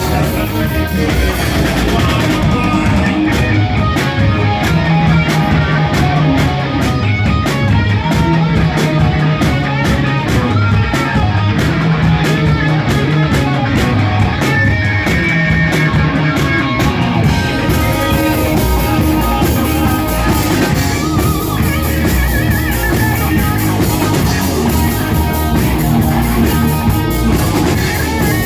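Rock band playing live on electric guitar, bass guitar and drum kit. For a long stretch the cymbals drop out, leaving a steady drum beat under the guitars and bass. They come back in a little past halfway.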